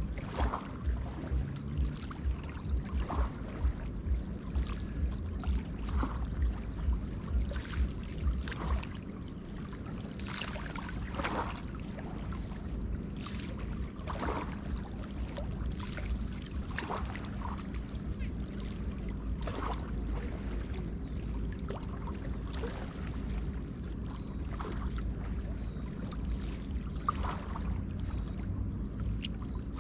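Small river waves lapping and splashing irregularly at the water's edge, over a steady low rumble of wind on the microphone.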